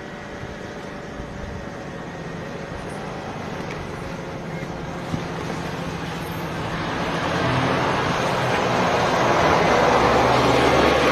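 A road vehicle's engine and tyre noise growing steadily louder as it comes up and passes close by, loudest near the end.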